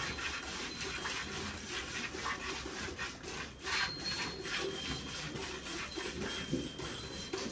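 Milk squirting by hand from a Holstein Friesian cow's teats into a steel pail, in a steady rhythm of short hissing squirts.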